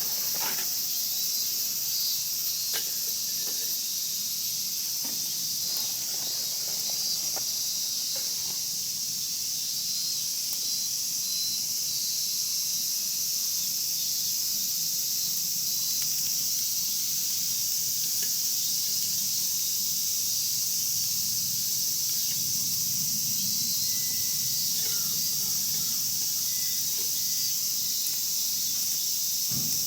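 Wood fire in a kamado crackling with scattered small pops, mostly in the first few seconds, over a steady high-pitched hiss.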